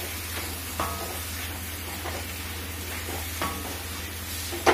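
Wooden spatula stirring and scraping spiced mashed-potato filling in a steel kadhai over a steady sizzle, with a few short clinks of the spatula against the metal pan; the loudest clink comes at the end.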